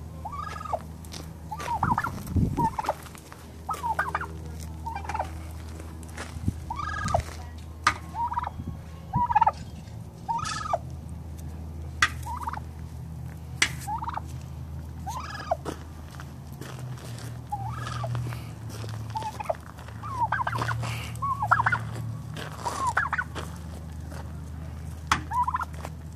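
Tom turkey gobbling over and over in short bursts, every second or two, with sharp taps in between. He is displaying at his reflection in a pickup's chrome bumper as if at a rival male.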